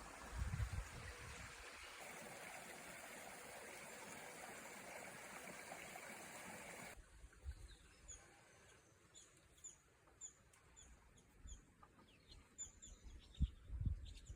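Clear mountain creek running steadily, which cuts off about halfway to a quieter scene of small birds chirping in many short, high, repeated notes. Low bumps sound on the microphone near the start and near the end.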